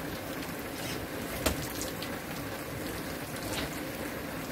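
Water splashing and sloshing as a hooked crucian carp struggles at the surface and is scooped into a landing net, with one sharp knock about a second and a half in.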